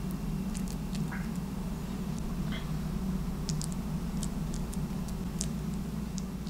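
A tortilla chip scooping through soft, mashed guacamole in a ceramic ramekin, making scattered small wet clicks and light crackles over a steady low hum.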